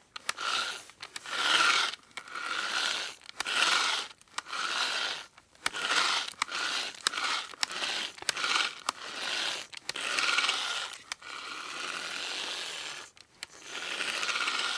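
Hand drill being cranked in repeated strokes, a grinding, scraping whir with a steady squeal running through each burst and short clicking pauses between them; one longer continuous turn about eleven seconds in.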